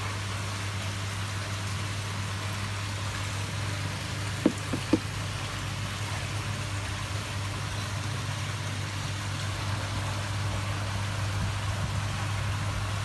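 A steady low machine hum under a constant even hiss like running or splashing water, with two brief high blips about four and a half seconds in.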